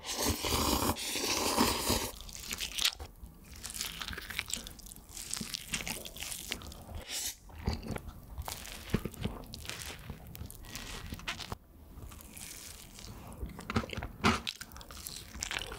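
Close-miked eating: a loud slurp of instant stir-fried noodles for the first two seconds, then a string of bites and chewing on soft bread and a spoonful of soft dessert, heard as many short wet clicks and smacks.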